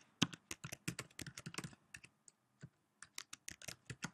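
Typing on a computer keyboard: a quick run of keystrokes, a short pause about halfway with only a few stray keys, then another quick run near the end.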